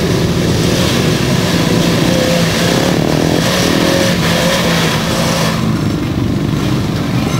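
Jeep Wrangler's engine running under throttle as it drives across wet sand and mud, with its pitch wavering slightly up and down.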